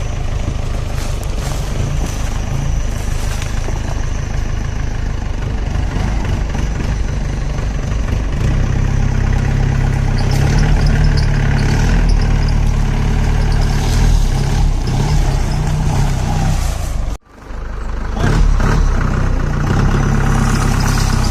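4x4 jeep engine running steadily up close, a little louder in its second half. The sound cuts out abruptly for a moment about 17 seconds in, then resumes.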